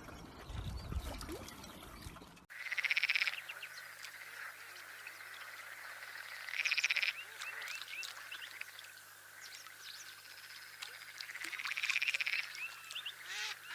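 Frogs calling: three rasping trills of under a second each, a few seconds apart, over a steady chorus, with scattered short chirps. The frogs follow a brief stretch of trickling water.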